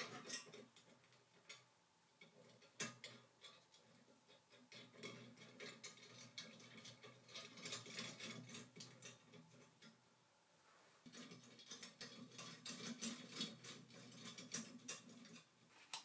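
Faint small metal clicks, ticks and rattles as a black metal bracket is handled and fitted onto an aluminium extrusion frame rail, busiest for a few seconds in the middle and again near the end.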